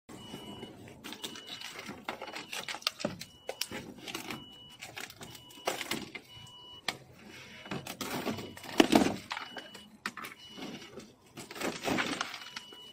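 A cracked, perished car dashboard covering crackling and snapping as it crumbles and breaks apart under a hand, with one loud crack about nine seconds in. A car warning chime beeps about once a second underneath.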